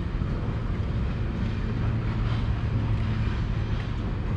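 A steady low mechanical hum, a little stronger in the middle, over outdoor background noise with some wind on the microphone.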